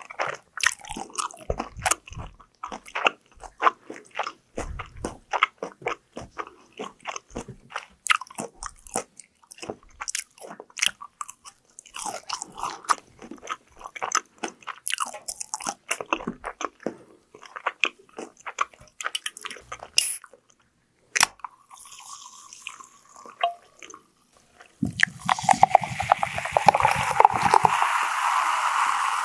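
Close-miked crunchy biting and chewing of fried food, many sharp crunches in quick succession. A denser, steadier crackling sound takes over for the last few seconds.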